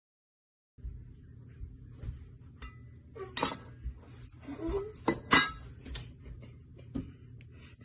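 Kitchen dishes and utensils clinking and knocking as they are handled, starting about a second in, with the loudest knocks a little past the middle, over a low steady hum.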